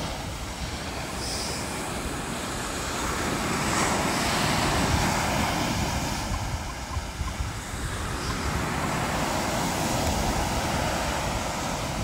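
Ocean surf breaking and washing up a sandy beach, swelling twice as waves come in, with wind rumbling on the microphone.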